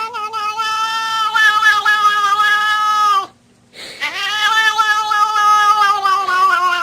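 Cat yowling: two long, drawn-out calls, each held steady for a few seconds and dropping in pitch as it trails off, with a short break about three seconds in.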